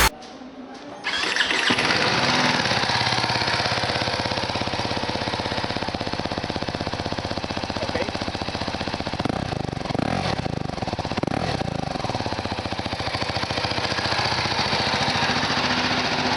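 BMW G 310 GS 313 cc single-cylinder engine on its stock exhaust, cranked for about a second before it catches. It then settles into a steady idle.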